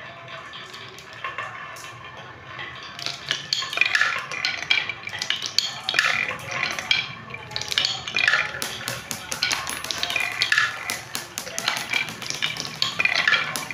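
Glass marbles rolling down a HABA wooden zigzag slope, clacking against the wooden groove walls at each bend. A few light knocks at first, then from about three seconds in a dense, irregular run of clattering clicks as more marbles travel the track.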